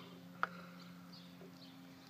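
A single light click of handling about half a second in, over a faint steady hum.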